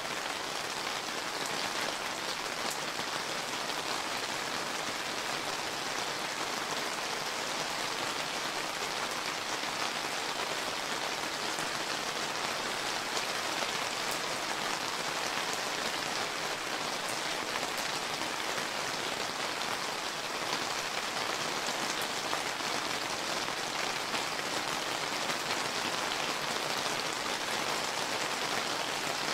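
Steady summer rain falling, an even hiss of many drops with faint scattered ticks of single drops.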